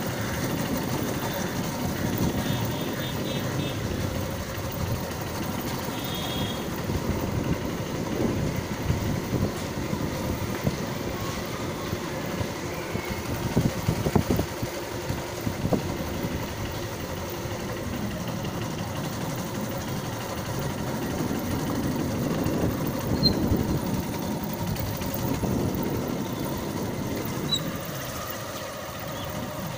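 Motor scooter engine running as it is ridden at a steady pace.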